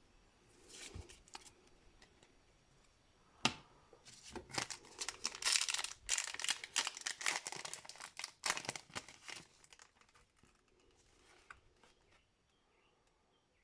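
Foil wrapper of a Pokémon Evolutions booster pack being torn open and crinkled by hand. A single sharp click comes about three and a half seconds in, then a dense run of tearing and crinkling that dies away near ten seconds.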